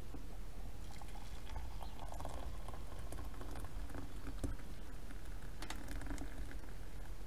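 Coffee poured from a black metal pot into a ceramic mug: a thin stream of liquid splashing and trickling into the cup, with a few small clicks. It starts about a second in and trails off near the end.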